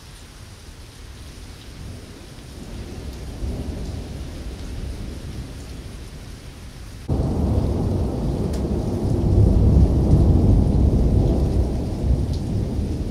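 Thunder rumbling in a thunderstorm over steady rain. A low rumble builds a few seconds in. About seven seconds in, a much louder rumble starts abruptly and slowly fades.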